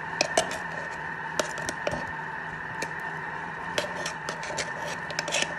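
Steady hum of a Thermomix running on its sauté setting, with irregular sharp clicks and taps of small hard objects being handled.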